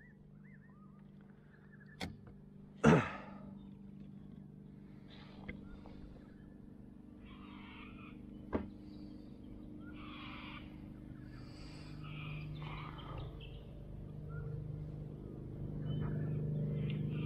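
Handling noises as a caught fish is worked in a rubber landing net on a plastic fishing kayak: a few sharp knocks, the loudest about three seconds in, and scattered rustling. A steady low hum sits underneath and grows louder near the end.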